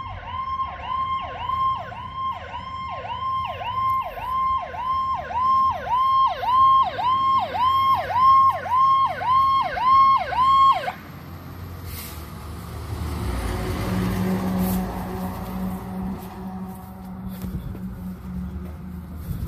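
Fire truck's electronic siren on a fast yelp, about two sweeps a second, growing louder as the truck approaches, then cutting off suddenly about eleven seconds in. The truck's engine is then heard running as it drives past.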